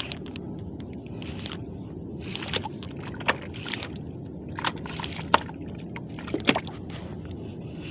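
Water slapping and sloshing against the hull of a small fishing boat, in short splashes every second or so over a steady low rumble, with a few sharp clicks.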